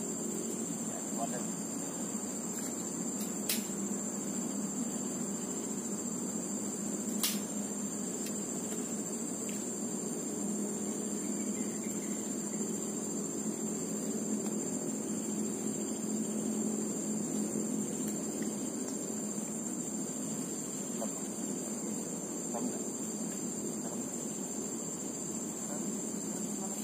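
Steady high-pitched trilling of insects in the streamside vegetation, without a break, with two sharp clicks a few seconds apart near the start.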